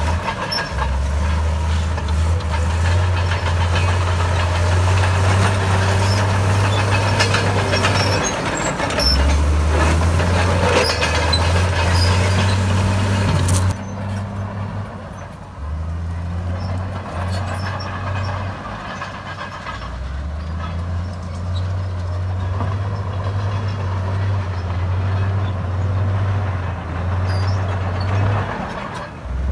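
Komatsu D68 bulldozer's diesel engine running under varying load, its low drone rising and falling in pitch, with the clatter of tracks and machinery over it. The clatter stops abruptly about halfway through, leaving the engine drone.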